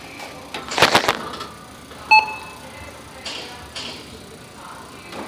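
Supermarket checkout: a single short beep from the barcode scanner as an item is scanned, with clattering of goods being handled about a second in and rustling afterwards.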